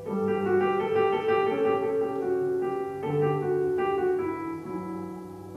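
Slow piano music: chords and single notes struck every second or so and left to ring over a steady low tone.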